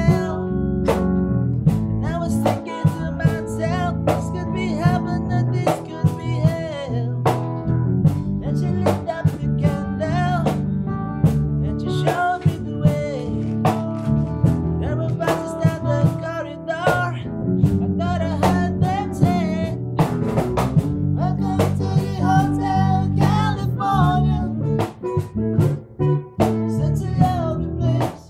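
Electric bass and guitar playing together over a steady drum beat, with a bending, wavering lead melody on top.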